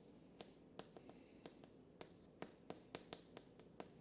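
Chalk on a chalkboard while words are written: faint, irregular taps and scratches, about three a second.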